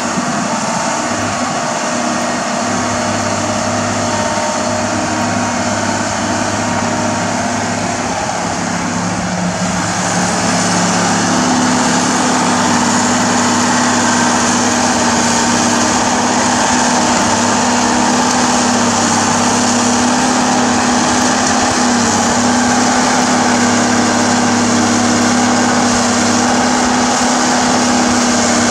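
Komatsu tracked excavator's diesel engine running steadily under working load as it digs, with a steady droning hum; from about ten seconds in it runs a little louder and higher.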